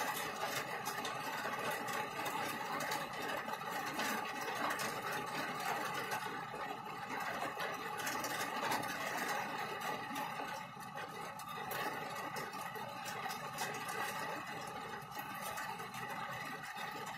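Heavy rain drumming steadily on a car's roof and windshield, heard from inside the car as a dense patter of drops with a steady low hum under it.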